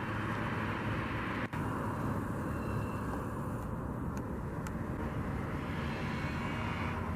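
Steady outdoor engine rumble from distant traffic or aircraft, with a faint steady whine running through it.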